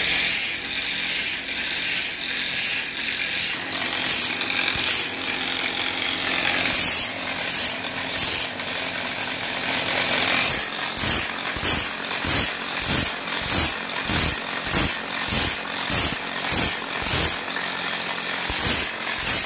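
Sawmill band saw blade being sharpened on a grinding-wheel sharpening machine: the abrasive wheel grinds the teeth one after another in a steady rasping rhythm, about two strokes a second. From about halfway through, each stroke also carries a deeper knock from the machine's indexing mechanism.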